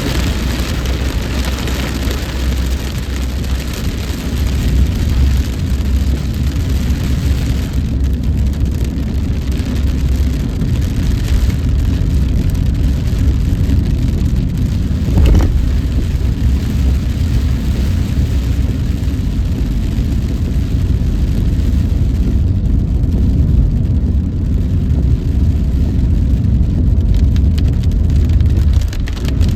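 A car driving in heavy rain, heard from inside the cabin: a steady low rumble of engine and road, with a hiss of rain and wet tyres that eases about eight seconds in. A single thump comes about halfway through.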